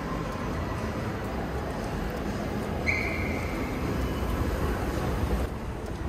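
Steady low rumble of a running mall escalator and the mall's hall, with a short high tone that falls slightly about three seconds in.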